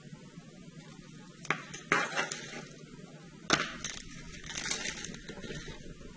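Sharp clicks and clatter of metal hand tools and rigging hardware being picked up and handled on a workbench, with rustling in between; the loudest clicks come about two and three and a half seconds in.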